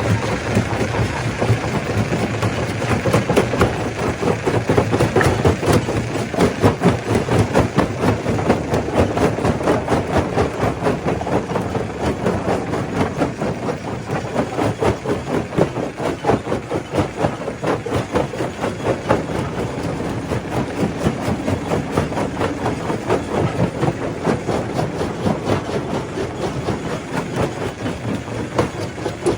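Stone crusher running: a steady machine drone overlaid by a dense, unbroken clatter of rock knocking and grinding as it is crushed.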